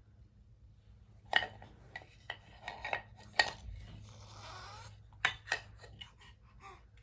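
Toy coin box and its coins knocking and clattering as a baby handles them: a string of separate sharp clacks, with a brief scraping rub about four seconds in.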